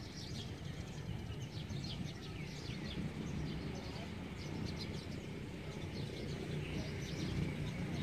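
Many small birds chirping over steady low outdoor background noise.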